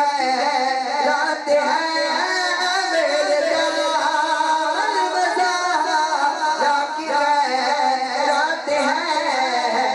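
A man's solo voice singing a naat, a devotional Urdu poem, into a handheld microphone. The melody is continuous and ornamented, with long, bending held notes.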